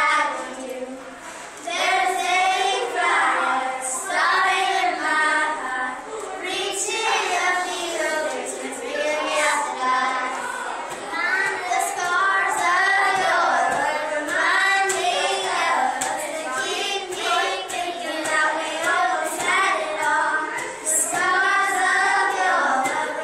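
A group of young girls singing a song together.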